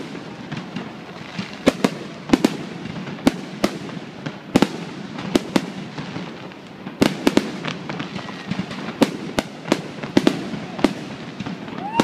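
Fireworks display: aerial shells bursting overhead in an irregular run of about twenty sharp bangs, sometimes two in quick succession, over continuous crackling.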